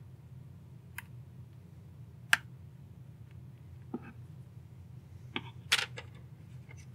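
Scattered sharp clicks and taps of a spudger working at the seams of the M5Paper's plastic case, the sharpest about two seconds in. Near the end comes a short clatter of knocks as the device is set down flat on a cutting mat. A low steady hum runs underneath.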